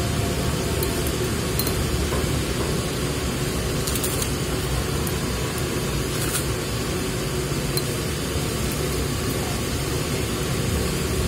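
Mouth sounds of eating: chewing noodles and biting into a crispy fried wonton, with a few faint crunches about four and six seconds in. A steady background hum runs louder than the eating throughout.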